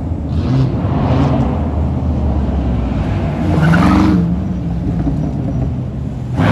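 Car engine running, swelling louder and rising in pitch briefly about three and a half seconds in, then settling back.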